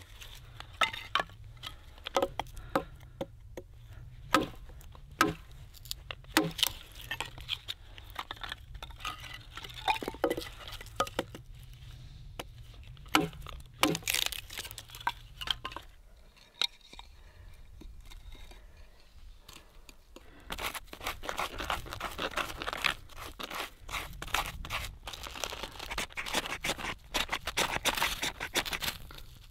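A hatchet splitting kindling on a chopping log, a series of irregular sharp knocks. After a short lull, from about twenty seconds in, a knife shaving thin curls of wood in quick rasping strokes.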